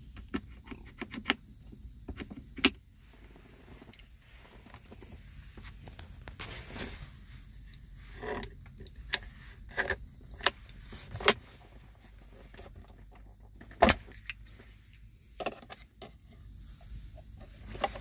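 Plastic clicks, snaps and knocks from a 2011 Mercedes-Benz ML350 center console armrest latch being worked and pried out by hand, at irregular intervals, a few much louder than the rest. The latch is not locking because its spring has popped off.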